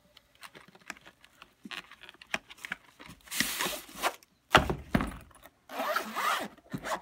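Cardboard sleeve scraping as a padded nylon gun case is slid out of it, then a thud as the case is set down on a glass counter. The case's zipper rasps as it starts to open near the end.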